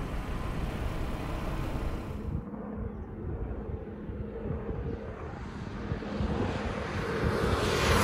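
Engine and road noise from a moving vehicle: a steady drone that swells louder near the end.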